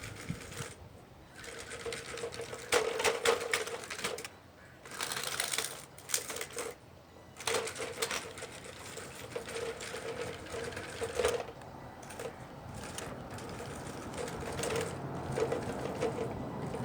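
Radio-controlled scale hydraulic excavator's electric pump and motors whirring in on-and-off spells as it is worked, with clicks and clanks in between.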